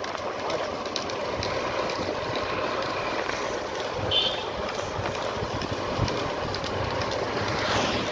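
Steady rumbling and rattling of a vehicle on the move, with a short high chirp about four seconds in.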